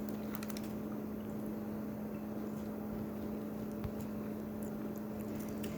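A steady low electrical hum, with a few faint clicks near the start and one more a little later.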